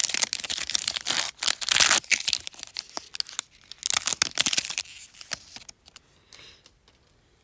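Foil wrapper of an NBA Hoops Premium Stock card pack torn open and crinkled by hand: a dense, loud run of crackling tearing for about two seconds, another burst of crinkling about four seconds in, then dying down to faint rustles of handling.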